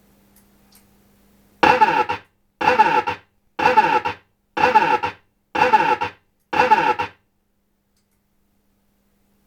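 Williams High Speed pinball machine's sound board in its sound test, playing one distorted sound six times about once a second, each about half a second long. The distortion is a fault: all music and sounds on this machine come out distorted.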